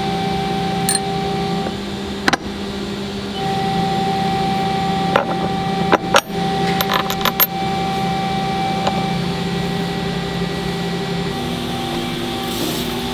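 Steel vise parts and a hex key clicking and clinking against each other: single clicks, then a quick cluster of small metallic clinks around the middle, over a steady hum.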